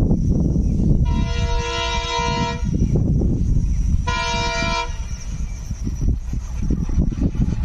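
Alco diesel locomotive's multi-tone horn sounding twice: a long blast of about a second and a half, then a shorter one about a second later. A low rumble runs underneath.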